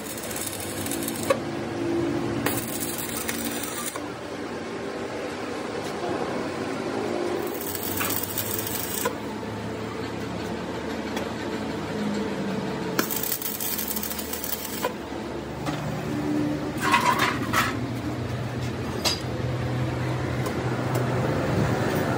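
A machine running steadily with a shifting hum, joined by several spells of hiss one to two seconds long and scattered sharp metal clicks.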